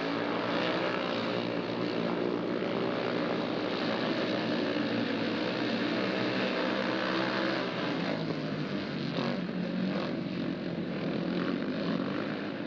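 Several speedway motorcycles racing together, their single-cylinder engines merging into one steady drone.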